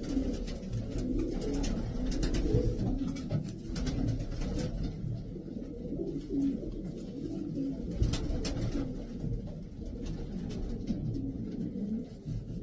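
Racing pigeons cooing steadily, a dense, overlapping murmur of low coos, with a few short sharp noises on top about two seconds in and again past the middle.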